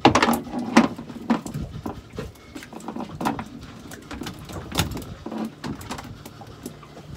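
Irregular knocks and thumps, a dozen or so spread over several seconds, the loudest just at the start: two just-landed mackerel and the tackle being handled on a small fishing boat.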